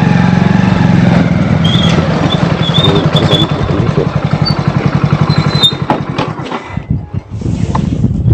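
Motorcycle engine running at low speed, its even firing rumble easing off near the end as the bike slows to a stop.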